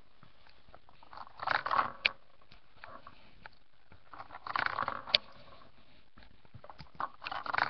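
Lego gumball machine being turned by hand, twice: two spells of plastic clattering and crunching from the Lego mechanism, each ending in a sharp click, with a few lighter clicks near the end.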